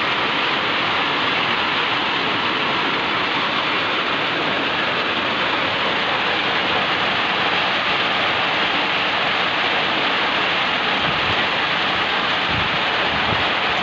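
Torrential downpour: a steady, dense hiss of heavy rain, with a few low thumps near the end.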